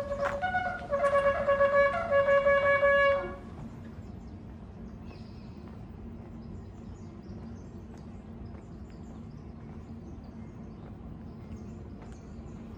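A ram's-horn shofar blown with a bright, brassy tone, broken into several short notes that end about three seconds in. After that comes a steady low background rumble with a faint hum.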